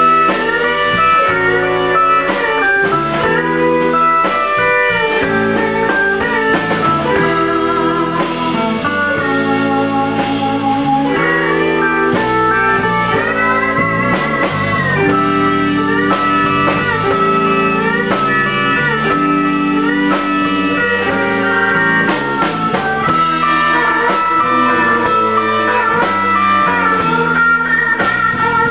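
Instrumental band playing live: electric guitar and pedal steel guitar carry bending, sliding melody lines with vibrato over bass and drums.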